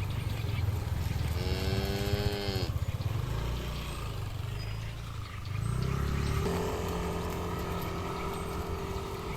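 Cattle mooing: a short call with a falling end about a second and a half in, then a long moo that rises and is held at a steady pitch from about six seconds in, over a low steady rumble.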